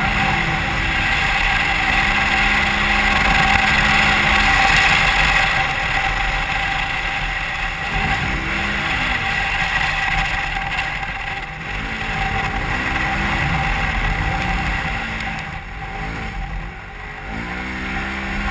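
Polaris RZR XP 1000 side-by-side's engine running hard over sand dunes, its pitch rising and falling every few seconds as the throttle is worked, under heavy wind and driving noise in the open cab.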